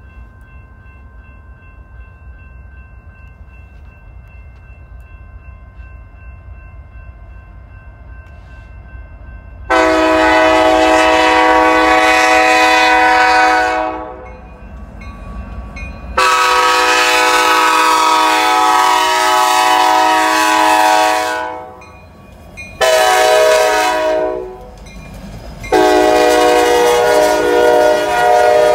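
Kansas City Southern diesel freight locomotive's air horn sounding the grade-crossing signal: two long blasts, a short one, then a long one. Before the first blast there is only a faint rumble of the approaching train, slowly growing louder.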